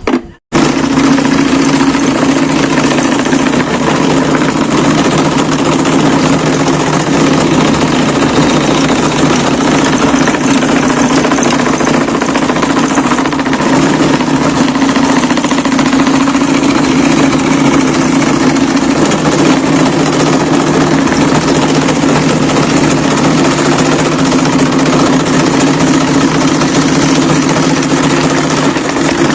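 Electric chain mortiser (gergaji bobok) running loudly and steadily as its cutter chain bores mortises into wooden furniture parts. It starts abruptly about half a second in.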